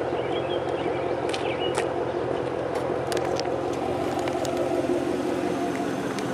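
Pontiac Trans Am's LS1 V8 idling steadily through an SLP Loudmouth exhaust, a deep, even idle with no revving.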